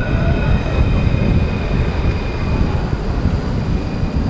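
Tram passing close by, giving a steady high-pitched whine of several tones that fades away after about three seconds. Under it is a constant low rumble of wind on the microphone from cycling.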